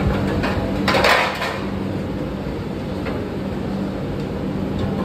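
A few clatters and knocks of kitchen utensils, the loudest about a second in, over a steady hum.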